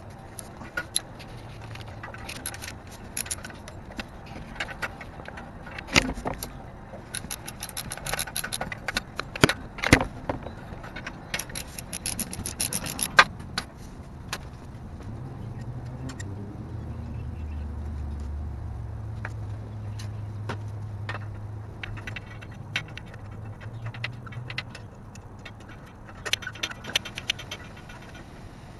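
Scattered metallic clicks, clinks and scrapes of hands and tools working under a car, near the exhaust pipe and oil pan. A low hum swells and fades in the middle.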